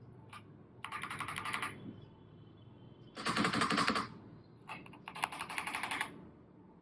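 Keychron K2 HE mechanical keyboard with magnetic Hall-effect switches being typed on in three fast bursts of rapid keystrokes, the middle burst the loudest.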